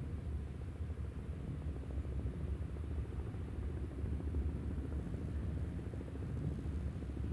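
Low, steady rumble of a Hawker 800XP business jet's twin turbofan engines in flight.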